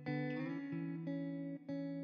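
Background music: a plucked guitar playing a run of notes that change every half second or so.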